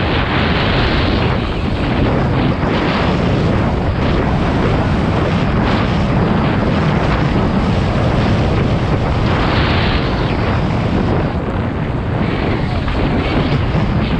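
Wind rushing over the camera microphone of a downhill mountain bike at race speed, together with the steady rattle and clatter of the bike's tyres and frame over rocks and dirt, with many small knocks throughout.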